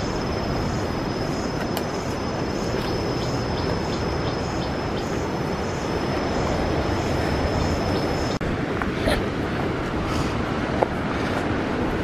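Steady rushing outdoor noise with a constant high whine and soft, regular chirps running through it. Both stop abruptly about eight seconds in.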